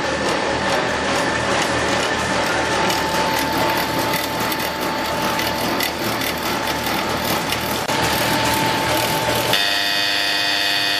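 Automatic vacuum investment mixer for jewellery casting running its stirring and vacuum cycle: steady machine noise with a steady tone and fast mechanical clicking, which changes abruptly near the end to a steadier hum of several tones.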